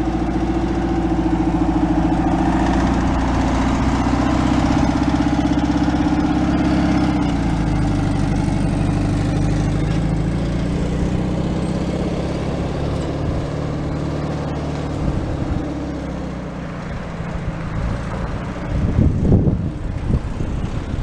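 An engine running steadily, its pitch dropping about eight seconds in and easing further later on, with a few irregular knocks near the end.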